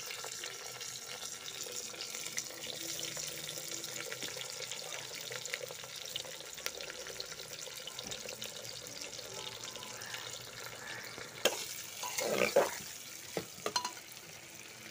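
Sliced onions sizzling in hot oil in an aluminium pressure cooker: a steady hiss full of small crackling pops. About twelve seconds in, a metal spatula scrapes and knocks against the pot several times as the onions are stirred.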